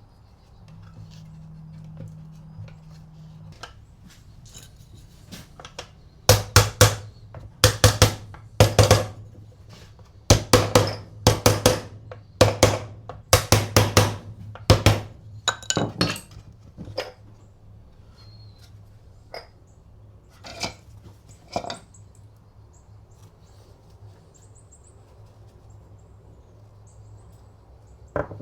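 Bursts of sharp knocks in quick groups, some struck in twos, from about six seconds in to about sixteen seconds in, then a few scattered lighter knocks.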